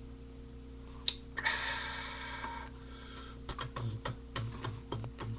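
A click and a short hiss, then a person gulping a drink in quick swallows, about three or four a second.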